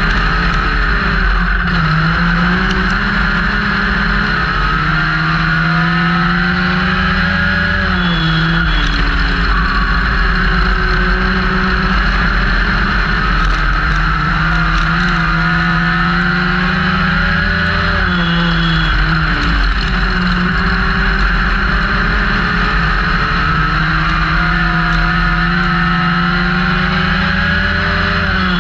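In-car sound of a Legend race car's Yamaha four-cylinder motorcycle engine at racing speed. The revs climb steadily under acceleration, then fall sharply three times about ten seconds apart as the throttle is lifted, over steady wind and road noise.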